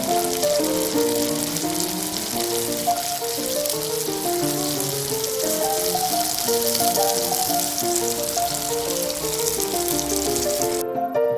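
Instrumental background music with a bouncy melody, under a steady, crackling hiss that cuts off suddenly near the end.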